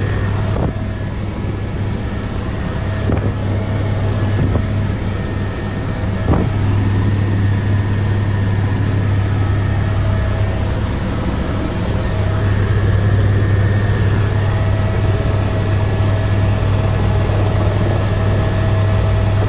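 Helicopter cabin noise in flight: a steady low drone with faint constant tones above it and a couple of light knocks.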